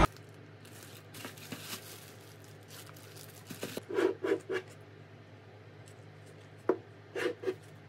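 Glass jars with metal lids being handled and set down on a tabletop: three soft knocks in quick succession about halfway through, a sharp click, then two or three more knocks near the end, over a faint steady hum.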